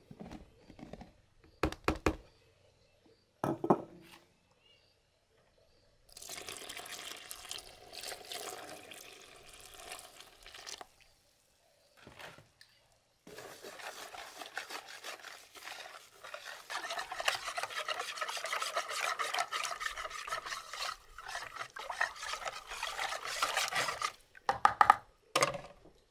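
Wire whisk beating flour and water into a batter in a plastic basin: a long run of quick scraping, sloshing strokes, with a few knocks early on and a couple of loud knocks near the end.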